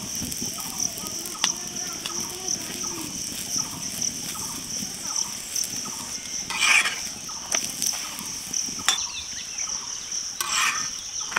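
Paratha frying in ghee on an iron tawa, with a metal spatula scraping and pressing it; the scrapes are loudest twice, about seven and ten and a half seconds in. A steady high-pitched drone and repeated short calls run in the background.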